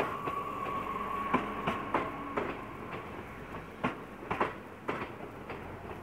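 SNCF AGC bi-mode railcar set (BGC) rolling past close by along a station platform, its wheels clacking over the rail joints in single knocks and close pairs. A steady whine runs under the clacks and fades out about two and a half seconds in.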